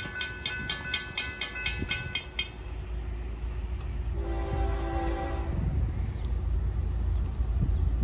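Grade-crossing bell ringing in quick even strokes, stopping about two and a half seconds in. About four seconds in comes one horn blast from the approaching Florida East Coast freight locomotives, over a low rumble that grows louder as the train nears.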